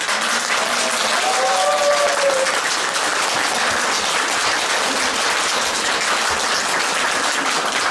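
Audience applauding steadily, with hands clapping close by.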